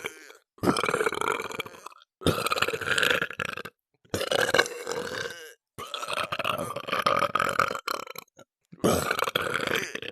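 A person burping: a run of about five long, drawn-out burps, each lasting one to three seconds, with short silent breaks between them.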